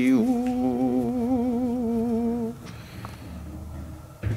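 Wordless humming: a held, wavering note with a second, higher line alongside it, stopping about two and a half seconds in. A single short knock follows near the end.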